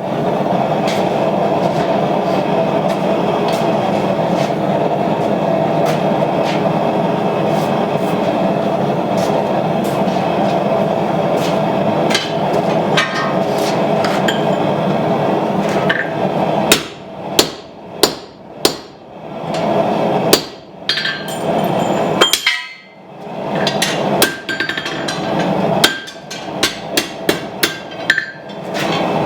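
A steady rushing noise for about the first half, then a run of sharp hammer blows on hot steel at the anvil, roughly two a second with short pauses, as a hot chisel is driven through to cut the knife's tang off.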